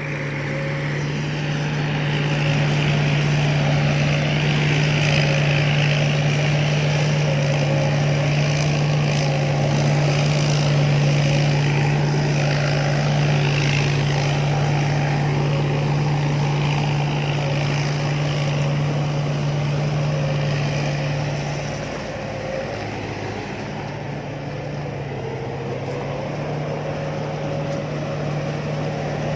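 Combine harvester running steadily, a constant low engine hum over machinery noise, which eases a little about 22 seconds in.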